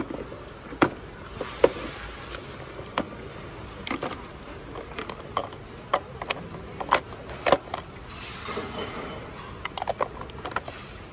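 A string of irregular sharp clicks and knocks, more than a dozen, over a steady background of shop noise.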